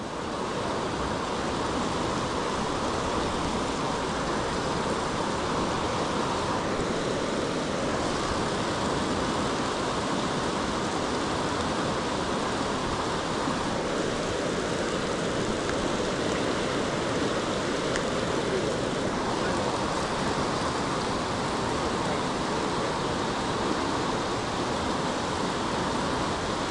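Steady, even rush of moving water with no distinct events.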